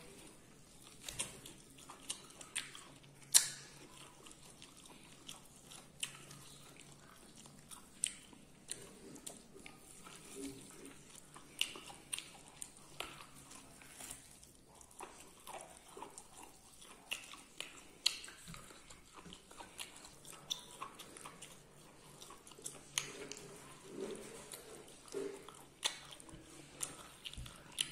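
A person chewing and biting food close to the microphone, with scattered, irregular mouth clicks and smacks.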